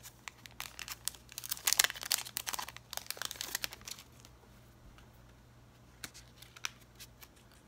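Clear plastic bag crinkling as it is handled, crackling densely for about three seconds, then only a few scattered crinkles near the end.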